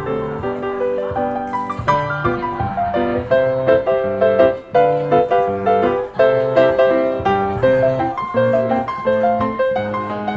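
Background piano music: a light melody of quick notes over a steady accompaniment.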